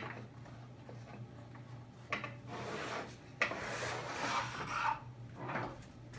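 Wood rubbing and scraping, with a few sharp knocks, as the four clamping knobs under a shop-built wooden drill press table are loosened and the table is worked free of the drill press. The scraping comes in patches from about two seconds in.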